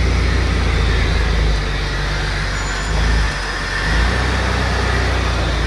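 Jeep Wrangler TJ engine running as the Jeep drives slowly across the driveway, with a deep, steady exhaust note. It eases off briefly a little past halfway through, then picks up again.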